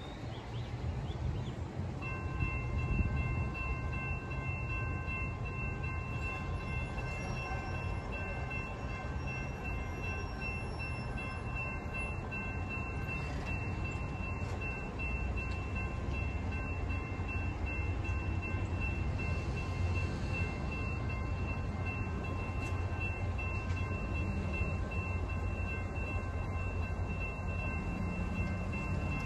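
Railroad grade-crossing warning bell ringing steadily, starting suddenly about two seconds in, over a low rumble.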